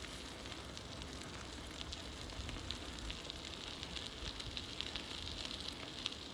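Faint outdoor background noise: a steady hiss with light, irregular crackling ticks.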